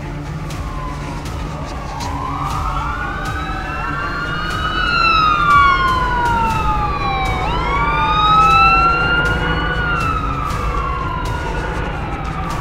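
Several emergency sirens wailing at once, their pitches sweeping up and down and overlapping. They grow louder around the middle.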